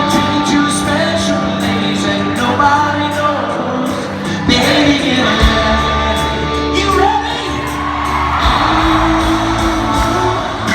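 Live country band playing with singing, drum hits marking the beat.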